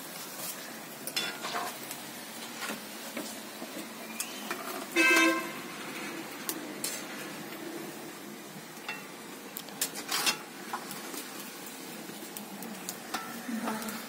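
Batuk fritters frying in hot oil in a wok over a wood fire: a steady sizzle with scattered clinks of a metal slotted spoon against the pan. A brief pitched sound about five seconds in.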